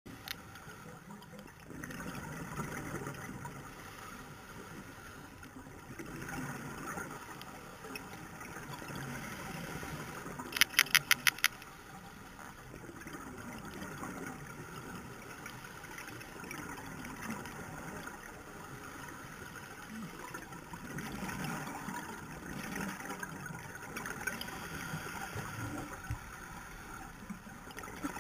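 Underwater sound picked up by a diver's camera: scuba regulator exhaust bubbles gurgling in swells every few seconds. About ten seconds in there is a quick run of about seven sharp taps.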